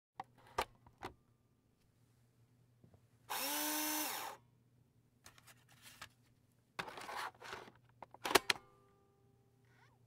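Optical disc drive taking in and spinning a disc. A few sharp mechanism clicks come first, then about a second of whirring with a rising whine that levels off as the motor spins up. More whirring follows, then a loud cluster of clicks near the end.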